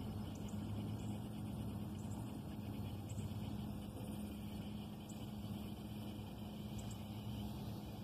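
Electric trolling motor running at a steady speed, giving a steady low hum.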